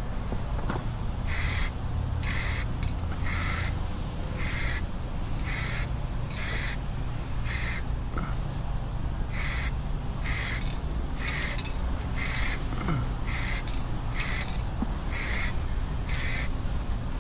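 Paint being sprayed onto a bass boat in short, regular bursts of hiss, about one a second, over a steady low hum.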